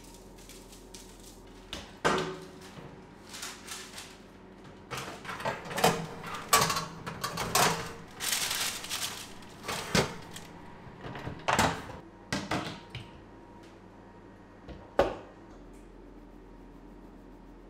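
Kitchen handling noises: a run of knocks, clicks and short scrapes of cookware being set down and moved, with a longer scraping clatter about eight seconds in as a baking tray is slid into the oven.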